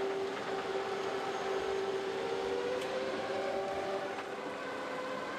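A steady electric hum carrying sustained tones, with a higher tone that slides slowly up and back down about halfway through.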